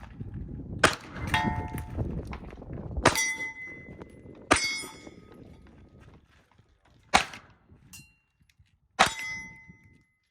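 Glock 19 9mm pistol shots at steel targets, about six, unevenly spaced and slowing toward the end. Each shot is followed by the ringing clang of a struck steel plate.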